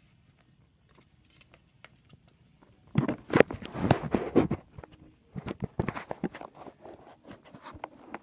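Handling noise: a dense cluster of clicks and rustles about three seconds in, then scattered clicks, as the hand-held camera is moved.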